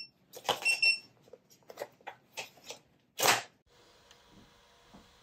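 Handheld infrared thermometer gun giving one short electronic beep, amid handling clicks and rustles, with a loud short knock or rustle a little past three seconds in. After that, a faint steady hum.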